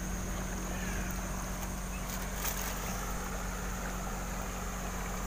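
Steady rush of a flowing river, with a thin steady high tone alongside it.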